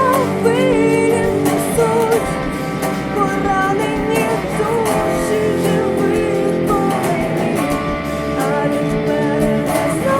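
Girl singing a Ukrainian pop-rock song with vibrato over strummed guitar accompaniment. The voice drops out between phrases while the guitar carries on.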